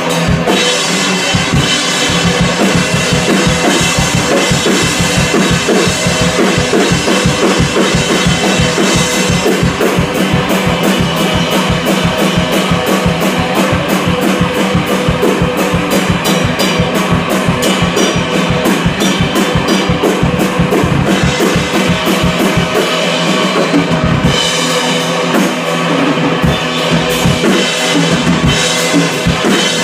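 Live drum kit played in a dense, busy stream of hits with heavy bass drum, under an electric guitar through an amp that sits low in the mix, in a free, improvised noise jam.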